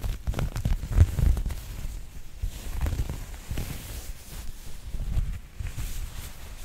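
A green ribbed knit sweater being rubbed, stretched and scrunched directly on a Zoom microphone's windscreen. It makes an irregular, deep, muffled rustling and rumbling with small crackles.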